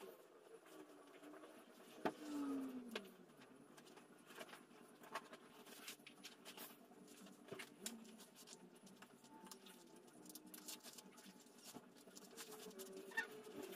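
Near silence with faint rustles and small scattered clicks from clothes being put on and a belt being fastened, plus one brief low falling sound about two seconds in.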